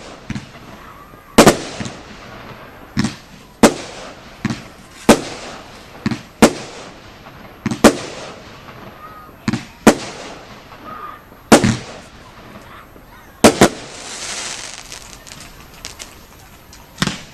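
Category F2 consumer fireworks going off: about a dozen sharp bangs at uneven intervals of roughly one to two seconds, some trailed by crackling. A hissing burst comes near the end.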